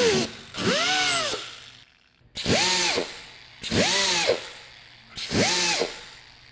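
Pneumatic right-angle die grinder spinning a 3-inch Scotch-Brite disc on steel tubing, triggered in short bursts. A longer run stops about half a second in, then come four quick blips, each a rising-then-falling whine over air hiss. Its head sounds a little dry, a sign the tool wants oiling.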